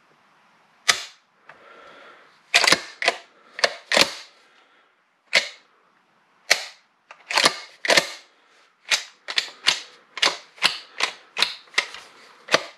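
Sharp metallic clicks and clacks from the mechanism of a 20-gauge pump-action shotgun as it is worked by hand. They are scattered at first, then come in a steady run of about three a second near the end.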